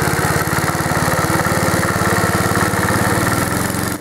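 Clinton engine of a 1952 AirCaps Sit'n Cut riding lawnmower running steadily, with a rapid, even firing beat.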